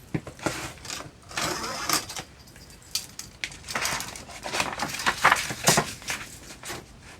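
A sheet of paper being handled and folded in half by hand, with a run of crinkling rustles and sharp crackles as it is creased.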